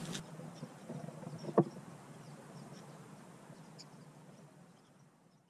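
Faint handling sounds from hands baiting a fishing hook, with one sharp click about a second and a half in; the sound fades away near the end.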